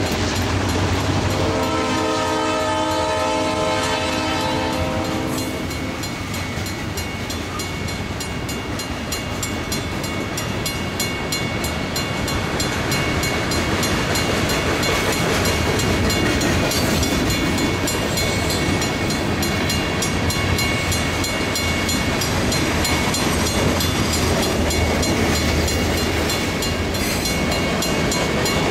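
Freight train's covered hoppers and tank cars rolling past, a steady rumble and clatter of wheels on rail. About a second and a half in, a locomotive horn sounds for about four seconds, then the rolling cars carry on.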